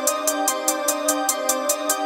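Electronic background music: sustained chords under a fast, steady high ticking beat.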